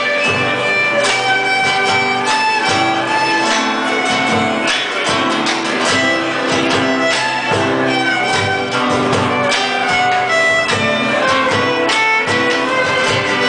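Argentine zamba played live on violin and acoustic guitars: a bowed violin melody of held, sliding notes over strummed and plucked guitar chords.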